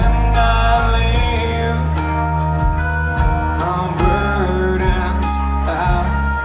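Live rock band playing loud electric guitars and drums, with a man singing over them.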